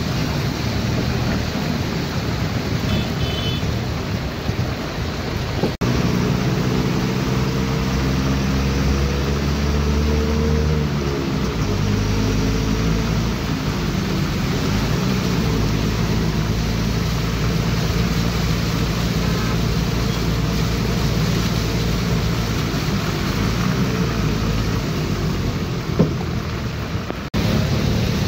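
Vehicle engine running with road and rain noise, heard from inside a moving vehicle. An abrupt cut about six seconds in brings a steady engine drone whose pitch drops around ten to twelve seconds in, and there is another sudden cut near the end.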